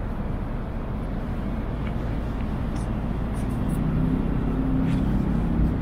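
Steady low rumble of city traffic, with an engine hum becoming more prominent about halfway through.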